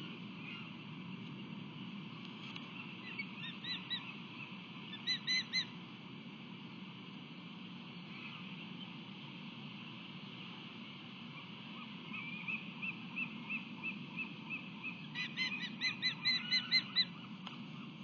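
Osprey calling in runs of short, high, whistled chirps repeated several times a second, in a few separate bursts, with the longest and loudest run near the end. A steady low hum of wind or city noise lies underneath.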